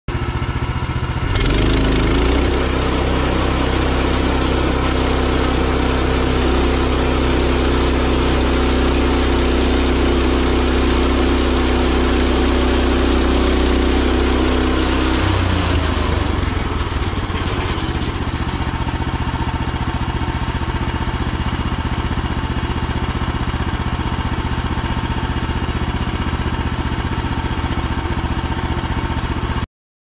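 Woodland Mills HM130MAX portable band sawmill's gas engine running steadily; its sound shifts about fifteen seconds in and again around eighteen seconds.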